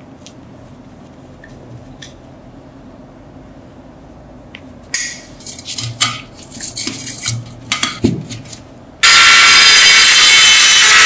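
Rusty metal teapot handles clinking and knocking in their mounts as they are worked by hand for a few seconds. About nine seconds in, a handheld rotary tool with a grinding stone starts suddenly and runs loud and steady, grinding rust off a handle.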